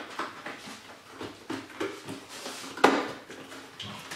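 Cloth rag wiping a whiteboard: a run of short, irregular scrapes and knocks, with one sharp knock about three seconds in.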